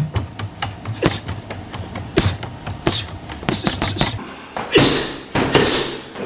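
Gloved punches on a reflex punching ball on a spring stand: quick, irregular thuds about three or four a second. From about four and a half seconds in come fewer, louder thumps with a longer ring, fitting punches on a water-filled punching bag.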